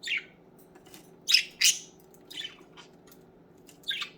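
Budgerigars giving short, harsh squawks: about six separate calls, the loudest two close together about a second and a half in.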